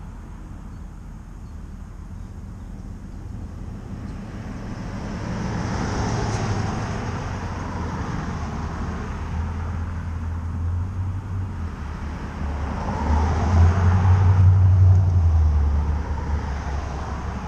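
Cars passing on a street, the engine and tyre noise of each swelling and fading as it goes by. The second pass, about 13 to 15 seconds in, is the loudest.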